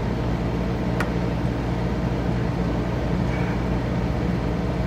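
A steady low machine hum, with a single sharp click about a second in, typical of the door handle sensor's wiring connector being plugged in.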